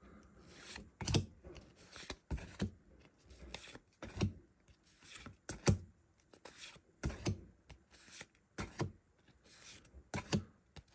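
Pokémon trading cards being flipped one at a time off a hand-held stack, each card snapping and sliding against the next in a sharp click, about a dozen clicks at uneven intervals with soft rubbing between.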